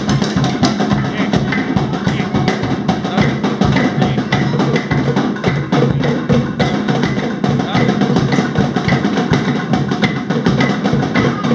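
Drums played fast and steady: rapid, sharp strokes over a deeper drum beat.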